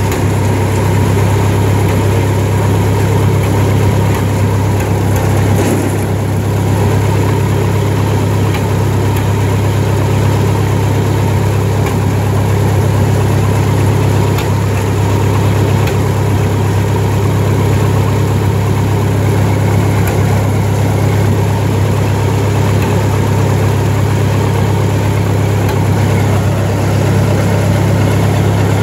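Lincoln SA-200 welder's Continental Red Seal four-cylinder gasoline engine idling steadily on a freshly rebuilt carburetor, holding an even speed.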